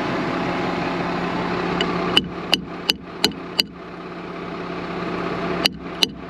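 Tractor engine idling steadily while a hammer strikes metal on the snow blower: five quick ringing blows about a third of a second apart, then three more near the end.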